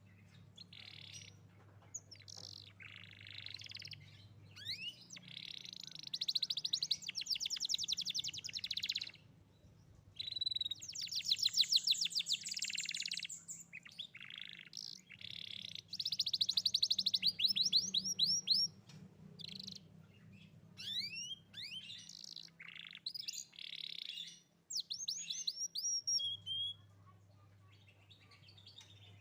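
Young domestic canary singing energetically in long, rapid trills and rolls, broken by short pauses and quick upward-sweeping notes. A faint low hum runs underneath at times.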